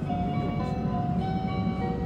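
Shinkansen onboard chime melody, a sequence of clear held notes changing in pitch, over the train's steady low running rumble.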